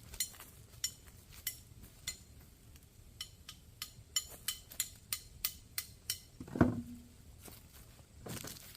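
A run of short, sharp clicks or taps, about two or three a second, with one louder knock about two-thirds of the way through.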